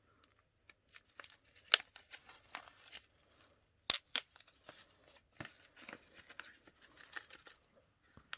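A small packet of loose herbal incense being handled and opened: irregular rustling of the packaging with a few sharp clicks or snips, the loudest about two and four seconds in.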